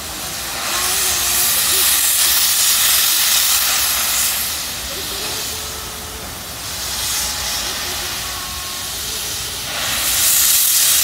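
Steam locomotive's open cylinder drain cocks hissing as it moves slowly off. The hiss comes in long surges: loud from about a second in, easing after four seconds, then building again and loudest near the end.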